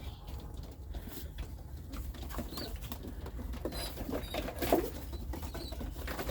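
White doves cooing and shuffling, with scratching and rustling of feet and feathers; the cooing and movement pick up after the middle.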